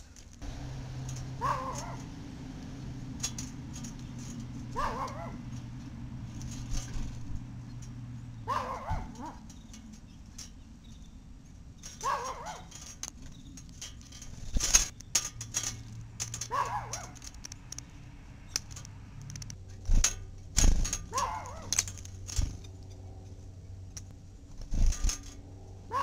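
A dog barking six times, single barks spaced three to four seconds apart. Between them come sharp taps and knocks from a bird at the feeder tray, over a low steady hum.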